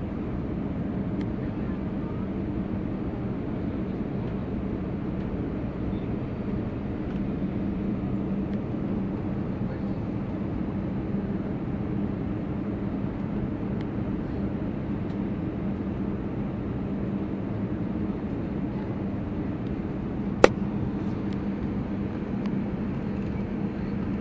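Steady jet-engine drone and rushing air inside an airliner cabin in flight, with a constant low hum. A single sharp click sounds about twenty seconds in.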